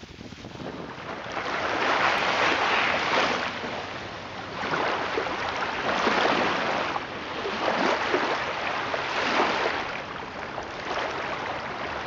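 Small sea waves washing onto a sandy beach, the wash swelling and easing every two to three seconds.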